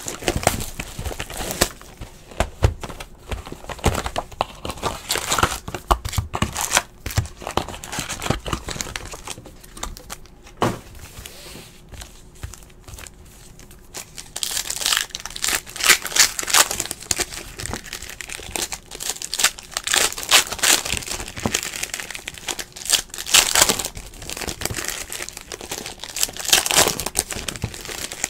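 Plastic wrappers of Panini Hoops basketball card packs being torn open and crinkled, with cards rustling as they are handled. It is a steady run of crackly rustles that eases off in the middle and gets busier and louder about halfway through.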